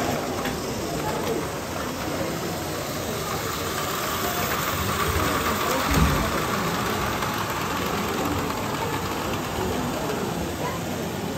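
Busy hall ambience: indistinct background chatter over a steady hiss, with a single thump about six seconds in.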